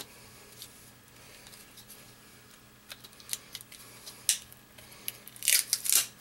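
Plastic and metal parts of a small cell phone clicking and scraping as it is pried apart by hand. Faint scattered clicks give way to a quick cluster of sharper clicks and scraping near the end.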